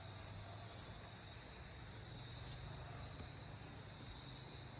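Crickets singing faintly, a steady chorus on one high note, with a low steady hum underneath.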